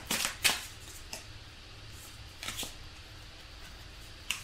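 A deck of tarot cards shuffled by hand: short riffling and snapping sounds as the cards slide and tap together, a cluster in the first half second, another around the middle and one just before the end, over a faint low hum.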